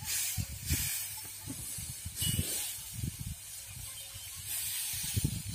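Dry paddy straw rustling and swishing in several short bursts as it is tossed and turned with a wooden fork during threshing, over irregular low thuds.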